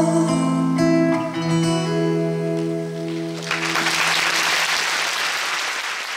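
The closing notes of a live ballad's instrumental accompaniment ring out with no singing, and about halfway through, the theatre audience breaks into applause that carries on to the end.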